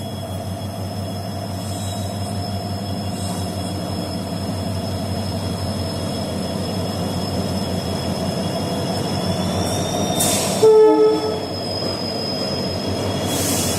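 WDG4 diesel-electric freight locomotive (EMD 16-cylinder two-stroke engine) running under power, a steady low drone with a high turbocharger whine, the jet-engine-like sound, growing slowly louder. A short horn blast sounds about eleven seconds in.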